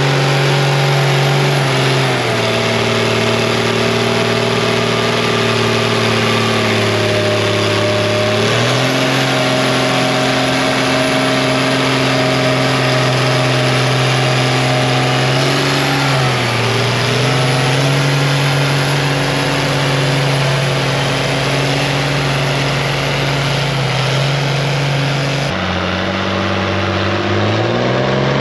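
Vintage tractor engine labouring under the load of a tractor-pulling weight transfer sledge. Its note drops and picks up again several times. Near the end a different tractor engine takes over, and its note rises.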